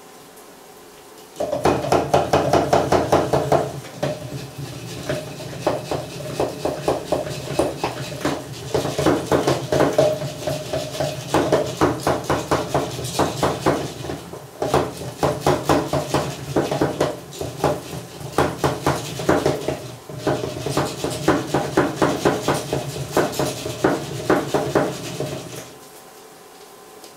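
Rapid, rhythmic clattering of a kitchen utensil against crockery or a board, several strokes a second, in one long run with a few brief pauses.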